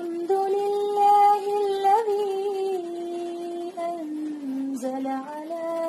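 A woman chanting Quranic recitation, drawing out long held notes that step down in pitch and then rise again near the end.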